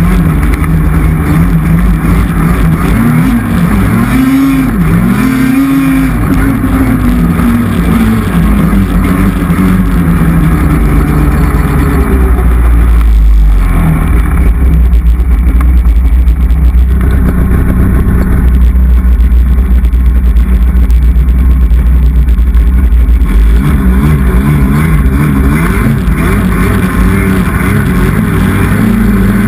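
Polaris snowmobile engine running under way, its revs rising and falling repeatedly a few seconds in and again near the end, with a deep low rumble through the middle stretch.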